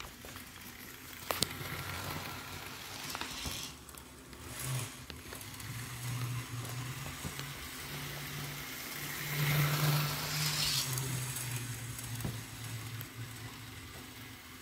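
Model train locomotive running around a circle of sectional track: a steady hissing rattle of wheels on rails with a low motor hum, louder for a couple of seconds past the middle. One sharp click about a second and a half in.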